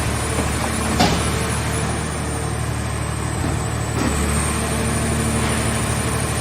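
Hydraulic scrap-car baler running with a steady machine drone, with two sharp knocks, about a second in and again at about four seconds.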